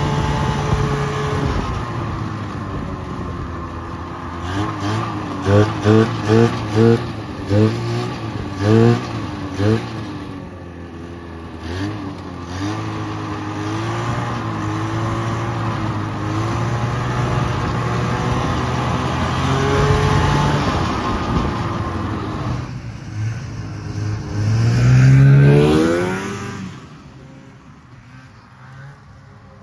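1978 Polaris Cobra 440 snowmobile's two-stroke engine running under way, heard from the rider's seat. About five seconds in it is blipped about seven times in quick succession, then runs steadily, and near the end it revs up in one long rise. After that it drops to a faint, distant engine sound.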